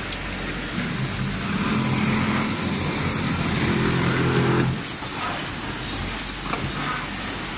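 Automatic pocket-setting sewing machine running a cycle: its motor hum climbs in pitch for about four seconds, then stops suddenly about five seconds in, followed by a hiss of air.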